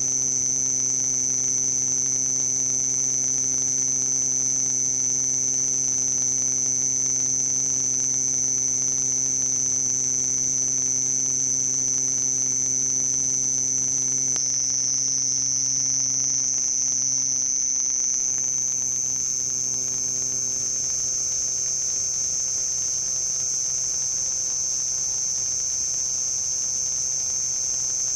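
Male house cricket (Acheta domesticus) stridulating, rubbing the toothed file under one forewing over the other, in a steady, high-pitched song that drops slightly in pitch about halfway through. This is the male's song from the entrance of a finished burrow. A low hum lies underneath.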